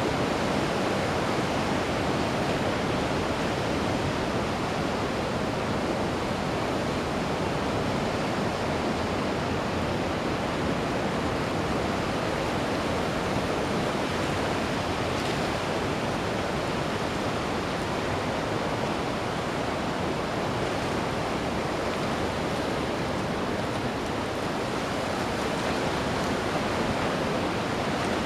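Ocean surf washing onto a beach: a steady, continuous rush of breaking waves with no distinct pauses between them.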